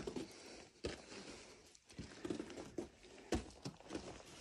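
Footsteps climbing wooden stair treads: a few scattered knocks about a second apart.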